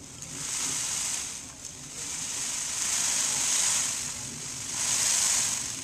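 Cicadas buzzing in a high, hissing drone that swells and fades about three times.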